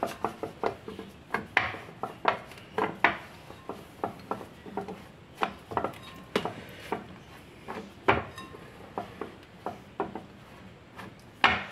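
Wooden rolling pin clacking and rolling against a round metal rolling board as chapati dough is rolled out: an irregular run of sharp knocks with light rubbing, and one louder knock near the end.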